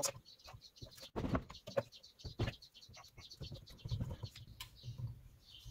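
Irregular light clicks and scrapes, with a few louder knocks, as a thin tool and hands work around the rusted cylinder of a seized JLO 292 two-stroke engine during teardown.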